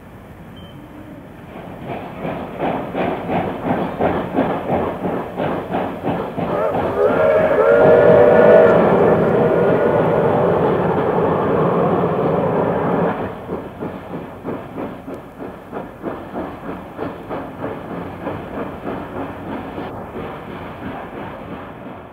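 Steam locomotive working hard with rhythmic exhaust beats, about two to three a second, as it passes. Its steam whistle sounds a short chord about seven to nine seconds in; the sound drops suddenly a few seconds later, and the exhaust beats carry on more quietly.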